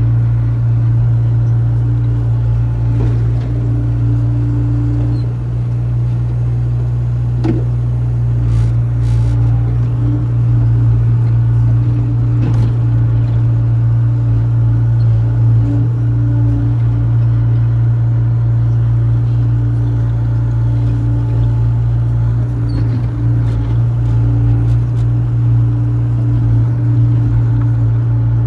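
Hydraulic excavator's diesel engine running steadily while the arm digs: a loud, even low drone with a higher hum that comes and goes, and a single sharp click about seven seconds in.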